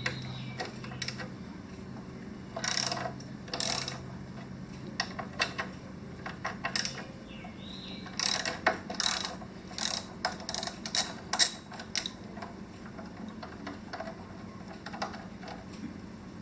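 Socket ratchet clicking in short runs as the 12 mm brake caliper bolts are loosened and backed out, with two short strokes a few seconds in and a quick run of clicks about halfway through.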